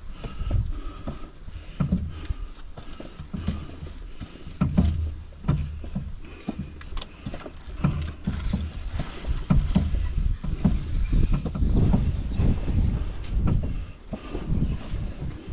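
Wind buffeting the microphone in uneven gusts that sound like heavy breathing, mixed with footfalls and short knocks from a canoe carried overhead on a climbing trail.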